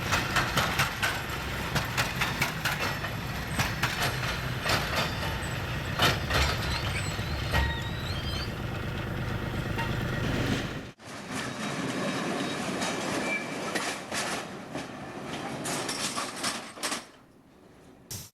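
Freight wagons rolling through a hump-yard rail retarder: steady rolling noise with frequent sharp clanks and knocks of wheels and brake beams, broken by an edit about eleven seconds in and fading near the end.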